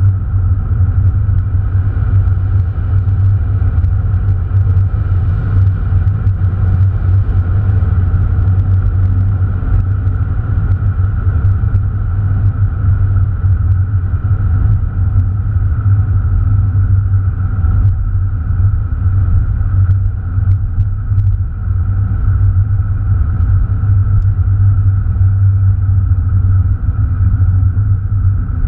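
Cabin sound of an Opel Astra Bertone Turbo's turbocharged four-cylinder engine and its road noise, heard from inside the car while cruising at a steady speed. It is a steady low drone with no revving or gear changes.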